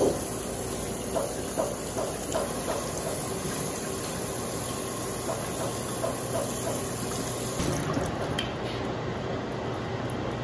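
Tap water running steadily onto frozen corn kernels in a stainless steel mesh colander over a steel sink, with light clicks as a hand stirs the kernels through the stream.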